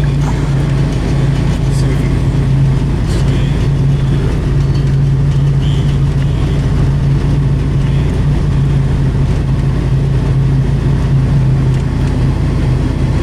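Chevy pickup truck driving at steady speed, its engine and road noise making a steady low drone heard from inside the cab.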